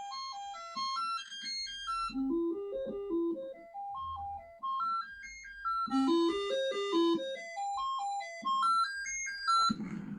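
Commodore 64 SID sound chip playing its diagnostic test tones: electronic notes stepping up a scale and back down, the run repeating about every four seconds. The tones carry some crackling, which may come from the capture device rather than a fault in the SID.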